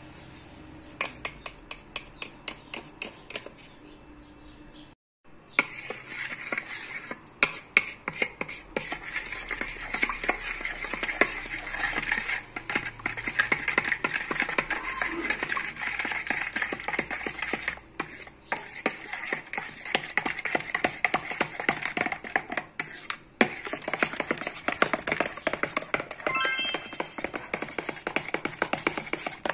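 Soft poğaça dough of yogurt, oil and flour being mixed and kneaded by hand in a bowl: a dense run of rapid small wet clicks and crackles. A few light taps in the first seconds.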